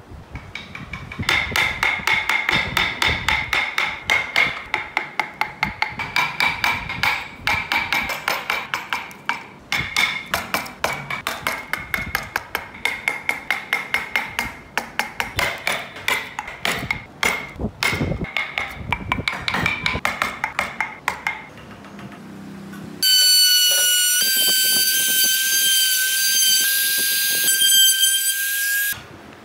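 Hand carving in wood with a chisel: a long, fast run of sharp taps, each with a short ringing note. About two thirds of the way in a compact trim router starts and runs at a steady high-pitched whine, louder than the carving, cutting off just before the end.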